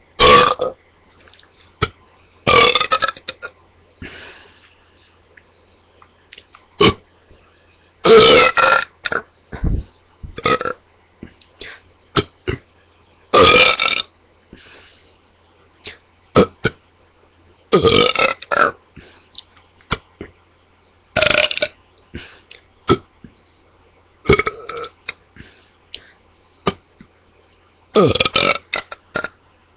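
A girl burping loudly again and again: about eight long, voiced burps a few seconds apart, with short sharp sounds between them.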